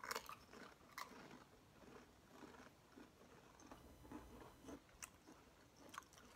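Two people biting and chewing Pringles potato crisps: faint, crackly crunching, with a few sharper snaps about a second in and again near the end.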